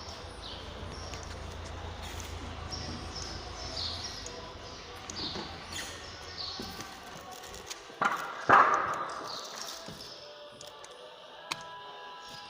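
Work sounds on a building site: scattered knocks and short high squeaks over a low hum. About eight seconds in come two loud bangs, the second ringing on.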